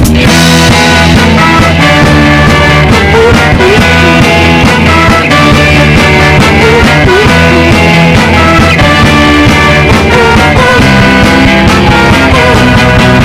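Background rock music with a steady beat and held guitar and keyboard chords.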